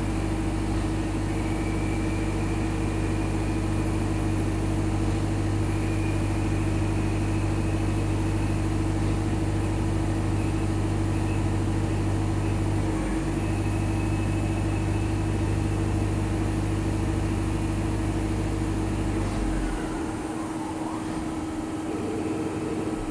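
Metal-cutting machine tool running, dry cutting free-cutting steel: a steady motor hum and drone with a faint high whine that comes and goes. The low hum drops away near the end while a steady tone carries on.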